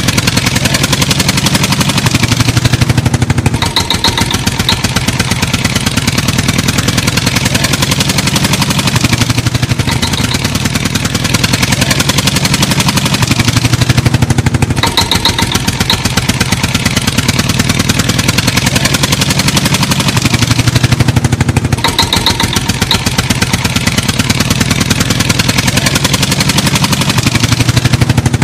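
An engine running steadily at idle, with rapid, even firing pulses; the same pattern repeats about every six seconds, as a looped recording does.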